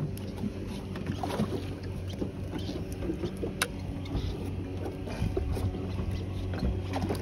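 Low steady hum of a boat's motor idling, with water noise against the hull and scattered light clicks and knocks of gear on the deck, one sharper click about three and a half seconds in.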